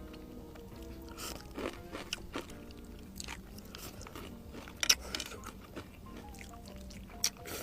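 Close-up chewing and crunching of crispy food, most likely the fried anchovy-and-potato balado topping eaten with noodles, in a few irregular bites with the sharpest crunch about five seconds in. Background music plays throughout.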